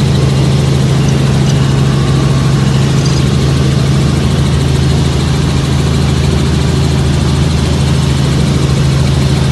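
Helicopter engine and rotor running with a steady low drone.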